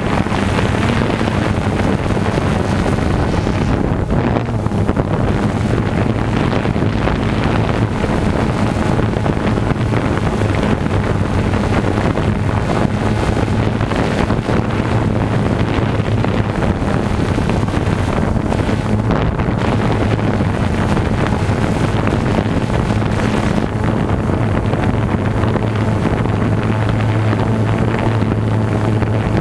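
Quadcopter drone's motors and propellers whirring with a steady low hum, heard from the camera mounted on the drone, with wind rushing over the microphone.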